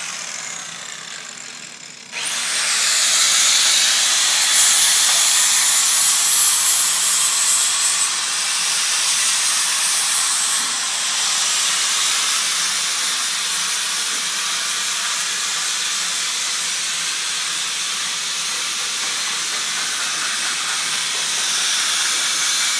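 Handheld angle grinder spinning down, then switched on again about two seconds in with a rising whine. It then grinds steel with a steady, loud hissing noise that wavers slightly in level.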